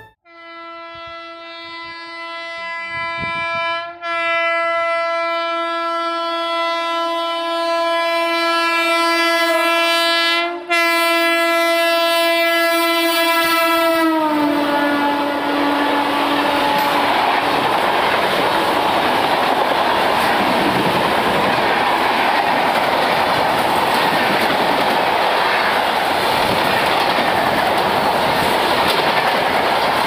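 WAP-7 electric locomotive's horn: one long blast broken by two short gaps, growing louder as the train approaches, its pitch dropping about fourteen seconds in as the locomotive passes. Then the express's coaches run past with steady wheel-on-rail noise.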